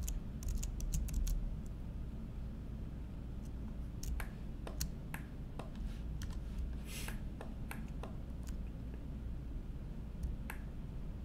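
Computer keyboard keys and mouse buttons clicking as someone works at a computer. There is a quick run of clicks in the first second or so, then scattered single clicks a second or more apart, over a faint low hum.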